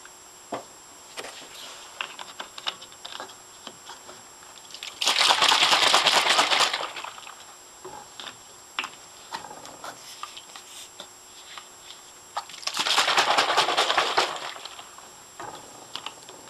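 Plastic algae-culture bottles being handled: two bursts of about two seconds of dense crackling and rattling, with scattered small clicks and taps between them.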